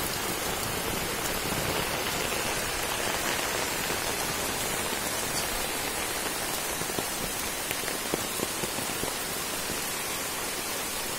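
Steady rain falling on wet ground and nearby surfaces: an even hiss with a few light taps in the second half.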